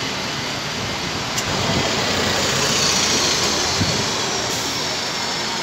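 Red London double-decker buses running past at close range, a steady mix of engine and road noise that grows a little louder in the middle as one goes by.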